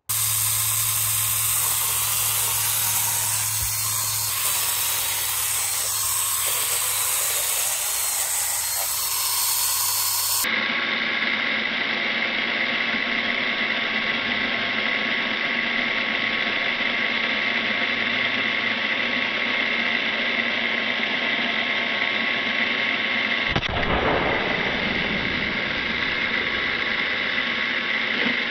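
Small battery-powered electric chainsaw running steadily. A rough, hissing stretch with a low hum gives way about ten seconds in to a steadier motor whine with clear pitched tones. A brief low thump comes near the end.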